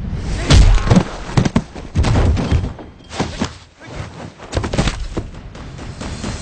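Martial-arts fight sound effects: a quick, irregular series of heavy hits and thuds, the loudest about half a second in, over background music.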